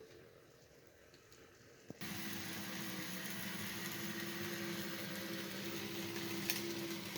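Quiet for about two seconds, then a steady diesel locomotive engine sound starts abruptly, a low even hum over a noisy rumble: an SD9 with its EMD 16-cylinder 567 engine running.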